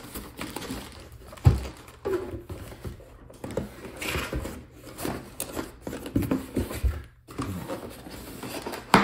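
Cardboard packaging being handled: cardboard inserts sliding and scraping against each other and against the box, with scattered knocks and one sharper thump about a second and a half in.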